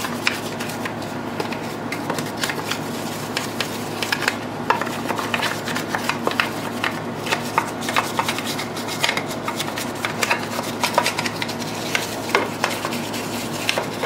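A small brush scrubbing the foamy, cleaner-soaked plastic case of a vintage JR radio-control transmitter: quick, irregular back-and-forth strokes of bristles on wet plastic.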